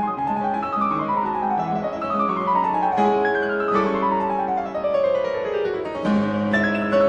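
Background piano music, with quick runs of notes falling in pitch over a steady lower accompaniment.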